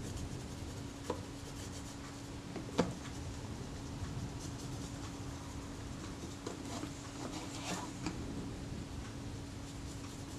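Wax polish being rubbed into the leather covering of a camera body, soft scuffing and rubbing with a few small knocks of the camera being handled, the sharpest about three seconds in. A steady low hum runs underneath.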